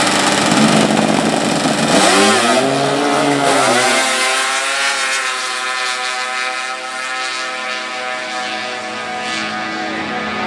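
Drag-racing snowmobiles launching at full throttle. The engine pitch climbs and wavers for the first few seconds, then holds a high, steady note that eases slightly as the sleds run away down the strip.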